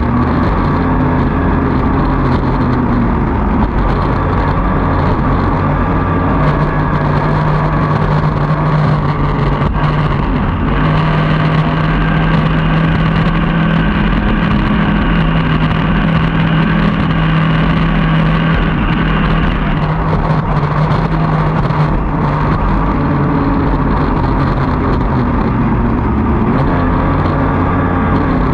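Outboard engine of a racing tunnel-hull boat running hard at racing speed, mixed with the rush of water and spray along the hull. The engine note drops a few seconds in, holds steady through the middle, and climbs again near the end.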